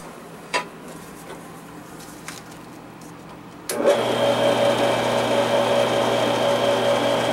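Metal-cutting bandsaw switched on about halfway through, its motor and blade then running steadily with a hum and a high whine. Before that, only a few faint clicks of handling.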